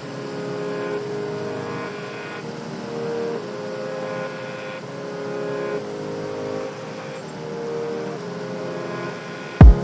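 Background music: held chords that change every second or so, with a heavy drum hit near the end.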